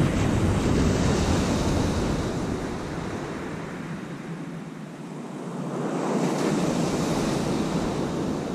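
Sea surf washing onto the beach in two surges, one at the start and another about six seconds in, with wind rumbling on the microphone during the first few seconds.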